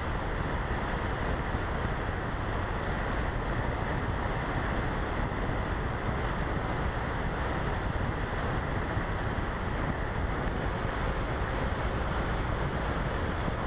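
Steady rush of airflow over the onboard camera's microphone as the RC glider flies, an even, unchanging noise.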